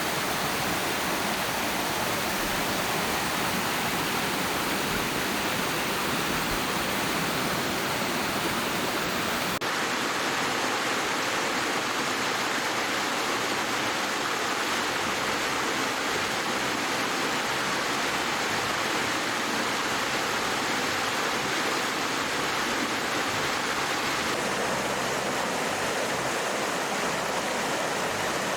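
Steady rush of cascading water in a mountain gorge. The tone of the rush changes abruptly about ten seconds in and again near the end, as from one spot on the water to another.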